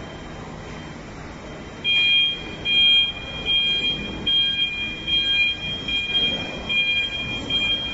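Electric three-way narrow-aisle forklift's warning beeper sounding as the truck moves: a high, two-note electronic beep repeating in a run of short beeps, starting about two seconds in.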